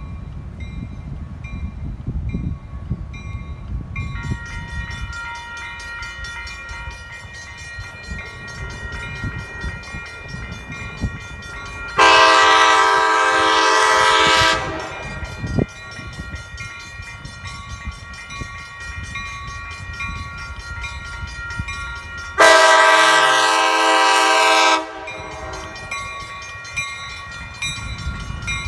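ACE commuter train's multi-tone air horn sounding two long blasts about ten seconds apart as the train approaches, with a bell ringing steadily in between.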